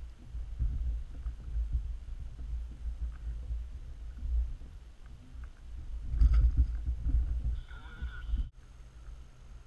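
Muffled low rumbling and bumping on an action camera's microphone. It is loudest about six seconds in and cuts off suddenly near the end.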